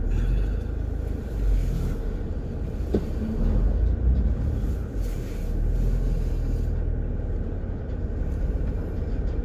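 Steady low rumble of a vehicle's engine and drive heard from inside the cab while it moves slowly, with one short click about three seconds in.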